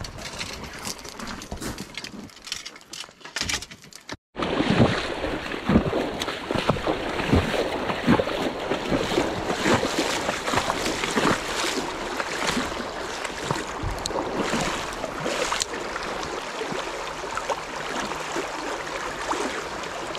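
Small clicks and rattles of tackle being sorted in a vehicle's cargo area. After a sudden cut about four seconds in, a shallow, fast-flowing trout stream rushes steadily, with frequent knocks and rustles of handling close to the microphone.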